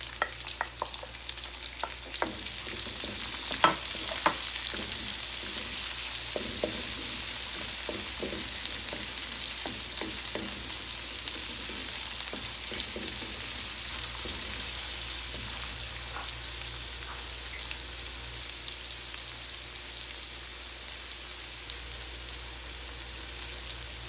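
Sliced red onions and minced garlic sizzling in hot oil in a wok, the sizzle building over the first few seconds after the onions go in. A spatula knocks and scrapes against the pan as they are stirred through the first half, then the frying goes on steadily on its own.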